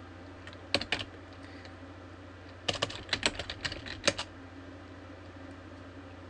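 Computer keyboard typing: a couple of keystrokes about a second in, then a quick run of about ten keystrokes near the middle, over a faint steady low hum.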